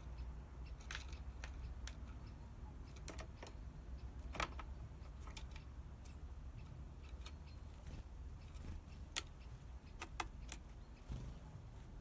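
Irregular sharp taps and clicks of a great tit landing and hopping on a plywood board and plastic bottle, the loudest three close together in the second half, over a steady low outdoor rumble.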